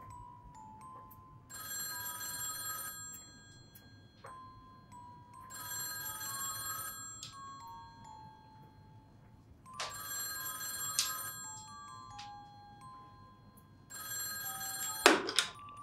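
Vintage wall telephone's bell ringing four times, each ring about a second long and about four seconds apart, over a soft chiming melody. Near the end the handset is lifted off its hook with a sharp clatter, cutting off the ringing.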